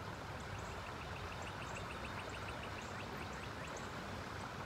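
Steady rush of a flowing river, with a rapid run of short high chirps about a second and a half in.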